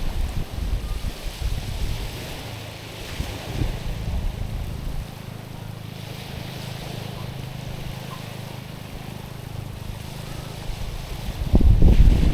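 Small waves washing onto a stony, pebbly shore, a soft hiss of water that swells and fades every few seconds. Wind buffets the microphone at the start and much louder from about eleven seconds in.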